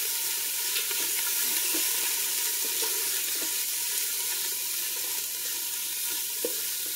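Frozen mixed vegetables sizzling in oil with sautéed onion and garlic in a stainless steel pot, stirred and scraped around the bottom with a spoon.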